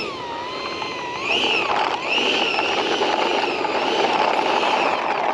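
Electric ducted fan of a 64mm Freewing F-22 RC jet whining, its pitch rising and falling as the throttle is worked; it gets louder about a second in.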